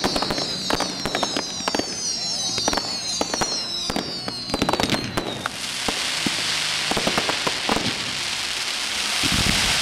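Fireworks going off: several whistling fireworks with falling whistles over rapid crackling pops for about the first five seconds, then a loud steady hiss of a ground fountain spraying sparks takes over, with a few deep thumps near the end.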